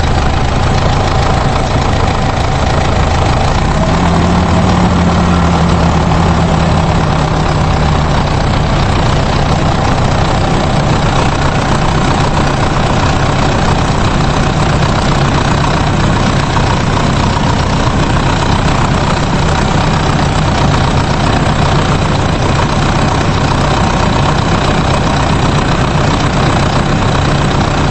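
A truck engine running steadily at an even, unchanging pitch, heavy in the low end, like an idle.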